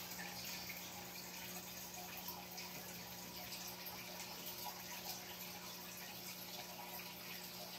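Three cats eating wet cat food from one metal bowl: faint, continuous wet chewing, licking and smacking, over a steady low hum.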